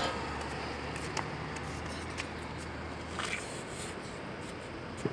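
Street ambience: a low, steady traffic hum for about the first three seconds, with a few light clicks scattered through it and a sharper click at the very end.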